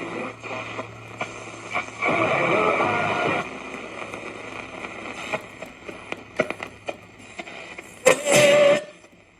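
1959 Sylvania Model 598 vacuum-tube AM radio hissing and crackling with static between stations, over a steady low hum. There is a louder stretch of noise about two seconds in, and a brief loud burst with a steady whistle tone near the end.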